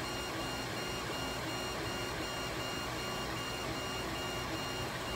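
Creality Ender FDM 3D printer printing: a steady cooling-fan hiss with the stepper motors whirring in short tones that repeat about twice a second as the print head traces around the ring.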